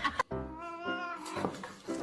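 A domestic cat meowing: one long, wavering call.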